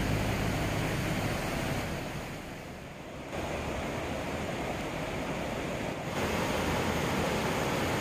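Steady rush of a mountain stream tumbling over rocks into a pool, with a small cascade. The sound dips briefly, comes back about three seconds in, and grows a little louder about six seconds in.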